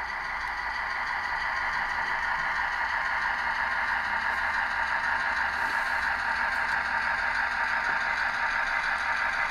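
HO-scale model freight train rolling along the track, a steady running noise that grows louder over the first few seconds as the cars come closer, then holds.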